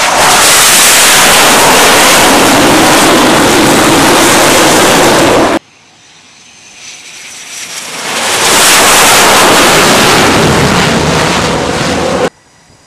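Very loud jet aircraft engine noise as carrier aircraft come in to land, heard in two edited takes. The first is at full loudness and cuts off abruptly about five and a half seconds in. The second builds up over a few seconds as an aircraft approaches, then cuts off abruptly near the end.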